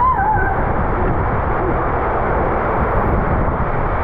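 Water rushing and a raft sliding fast through an enclosed water-slide tube, a loud steady rush; a rider gives a short wavering yell right at the start.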